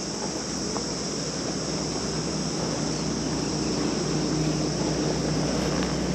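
A steady high-pitched insect chorus, with a low motor hum underneath that grows gradually louder.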